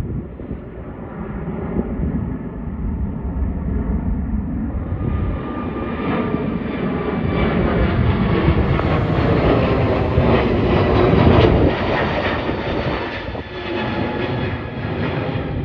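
Jet airliners climbing out overhead after takeoff: a steady jet-engine rush and rumble with a faint whine. The sound changes abruptly twice and is loudest about two-thirds of the way through.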